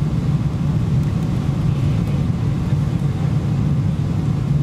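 Steady cabin drone of a Boeing 777-200ER on final approach: engines and airflow heard from inside the cabin as an even, low roar with no changes.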